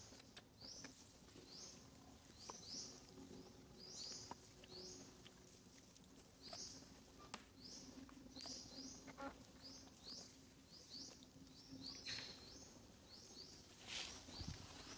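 Faint outdoor ambience: a bird's short, high chirps repeating irregularly, one to two a second, with a few light ticks and a faint steady low hum underneath.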